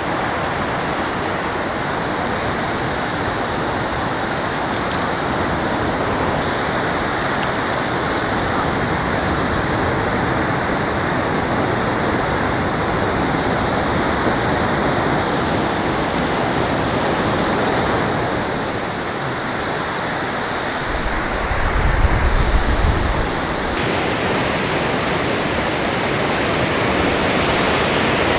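Steady rushing noise of surf washing over a sandy beach, with a short low rumble about three-quarters of the way through.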